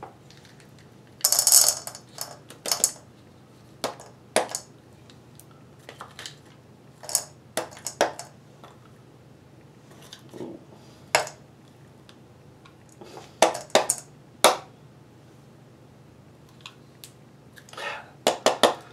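Metal pliers clinking and scraping against a ceramic cup as the stars and composition of a fireworks aerial shell are picked out into it: irregular sharp clicks, with a longer scraping rattle about a second in.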